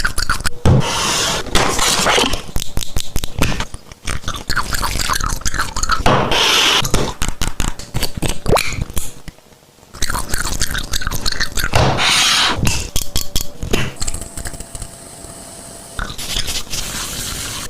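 Packaging being unwrapped and handled close to the microphone: crinkling, scraping and clicking, with a brief pause about nine seconds in.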